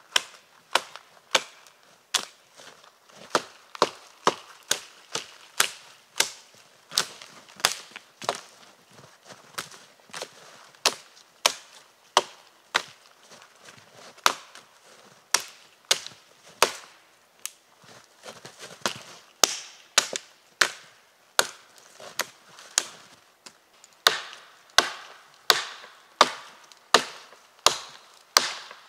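Swedish axe, a Gränsfors Bruk Wildlife Hatchet, chopping wood in a steady series of sharp chops, about one and a half a second.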